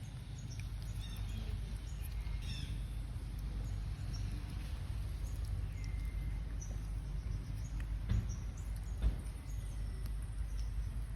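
Outdoor background noise, a steady low rumble, with faint short high-pitched chirps here and there and two brief thumps near the end.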